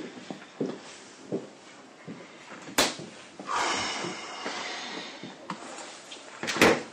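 A few soft footsteps on an office floor. About three seconds in comes a sharp click, then a short hiss, and near the end a louder knock.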